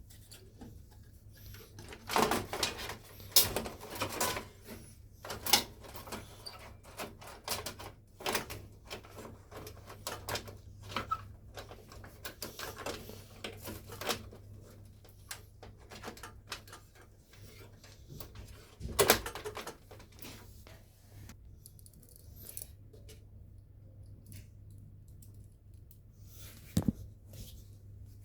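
Irregular clicks, knocks and rattles of PC hardware being handled and fitted into a metal computer case, such as screws, panels and components, over a steady low hum. The loudest knocks come a couple of seconds in and again about two-thirds through.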